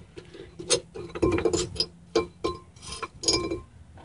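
Hammer blows on metal, knocking the worn pinion bearing out of a Jeep Dana 30 front axle housing: a run of sharp, unevenly spaced strikes, several of them ringing briefly.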